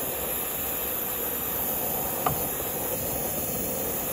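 Gas brazing torch flame hissing steadily as it heats a copper refrigerant line joint with the brazing rod held in, with a single brief click about two seconds in.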